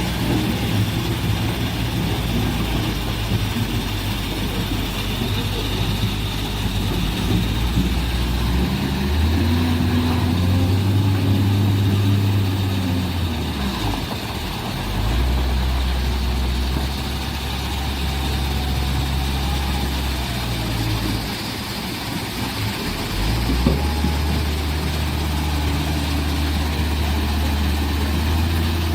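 Heavy earthmoving machine's diesel engine working under load, its low note swelling and rising in pitch about a third of the way in and dropping back, then holding steady. It dips again near the end of the second surge and picks back up with a brief knock.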